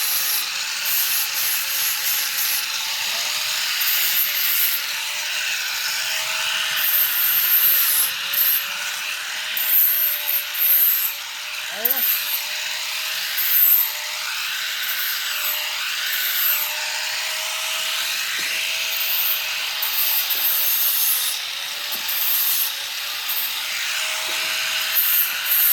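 Electric arc welding: a steady crackling hiss with a faint steady hum beneath it.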